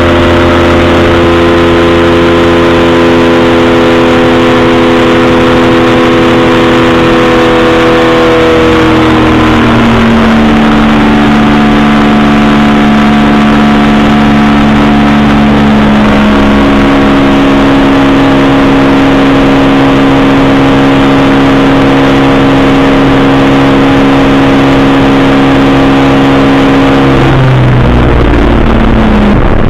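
Powered parachute's engine and propeller running steadily in flight, heard from on board. The pitch dips and settles a little lower about a third of the way in, then falls sharply near the end as the engine slows.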